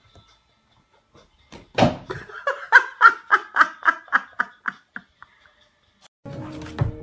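A person laughing in a run of short rhythmic 'ha' bursts, about three or four a second, that start about two seconds in and fade away over some three seconds.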